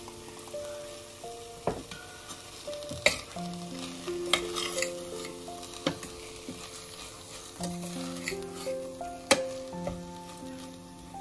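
A steel spoon stirring moringa (drumstick) leaves as they fry in a stainless steel pan: a soft sizzle with several sharp clinks and scrapes of the spoon against the pan. Background music with a slow melody of held notes plays throughout.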